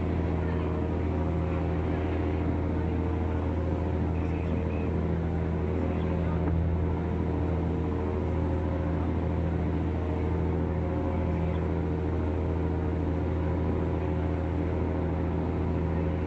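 A passenger ferry's engine droning steadily, heard from on deck, with an even low hum and a light wash of water along the hull.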